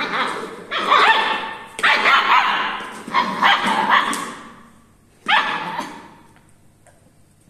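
A 1.5-month-old long-coat German Shepherd puppy barking and yipping in about five short, high-pitched bursts. The last one comes about five seconds in.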